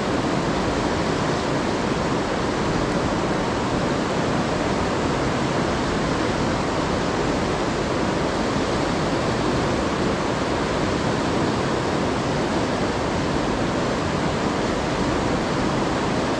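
Fast white water of the Seti River rushing through a rock gorge: a steady, even rush of water noise.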